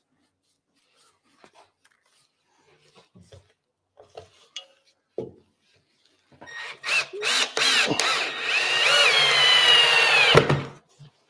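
Cordless drill driving a screw through a plywood cleat into an oak chair seat. A few short starts, then a steady motor whine for about three seconds that drops slightly in pitch as the screw goes in, and stops suddenly. Faint clicks and handling sounds come before it.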